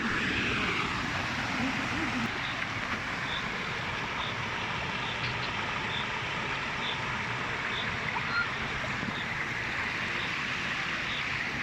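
Small waterfall and stream water rushing steadily.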